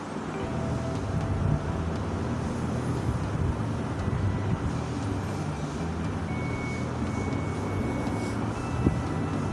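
A long-handled spatula working a thick, bubbling khoya-and-sugar mixture around a metal wok, over a steady low rumble, with one sharp knock near the end.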